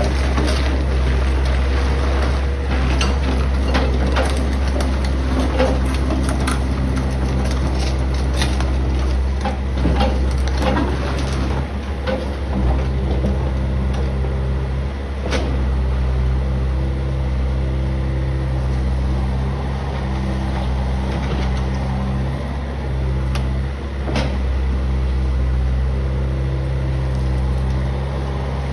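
Backhoe's diesel engine running steadily, with scattered knocks and rattles as the bucket works crushed stone, mostly in the first twelve seconds.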